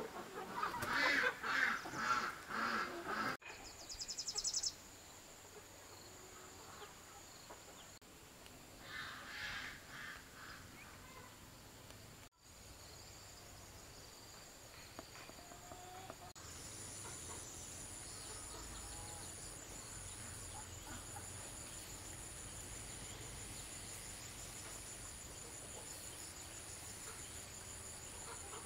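Chickens clucking and calling in a run of loud calls for the first few seconds and again about nine seconds in. From about sixteen seconds a steady, evenly pulsing high insect chirring takes over.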